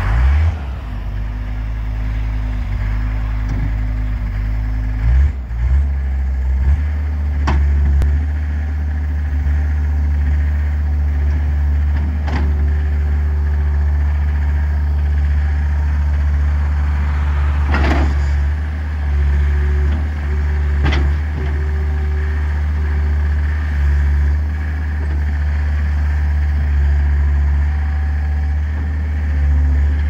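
John Deere 325 skid steer's diesel engine running steadily; its note steps up about five seconds in as the loader arms are worked. A few short, sharp knocks are heard along the way.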